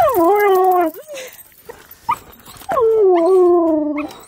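Husky-malamute cross 'talking': two long howling calls, each sliding down in pitch over about a second, with a brief rising whine between them.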